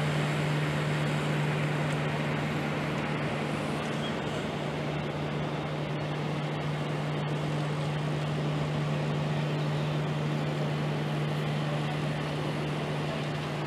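A steady mechanical hum: one constant low tone under an even hiss, unchanging throughout.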